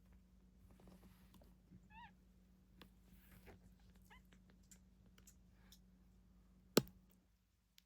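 Two short, high mews from a cat, one about two seconds in and a fainter one about four seconds in, among faint rustles and clicks over a steady low hum. A single sharp click near the end is the loudest sound.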